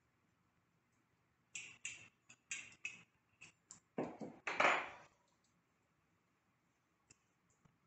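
A metal spoon clicking against a glass jar and scraping as fine sugar is scooped and spread over dough on a wooden board: a run of light clicks, then one louder scrape about four seconds in.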